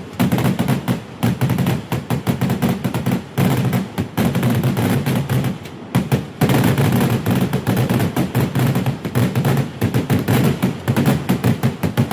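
Fireworks going off as a dense, rapid barrage of firecracker bangs, many per second, with brief lulls about three and six seconds in.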